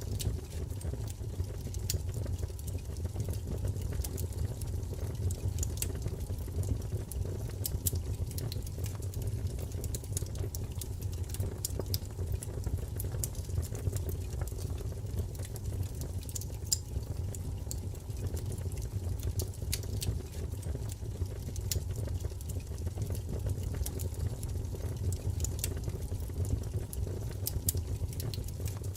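Wood fire crackling in a fireplace: a steady low rumble of flames with frequent, irregular sharp pops and crackles.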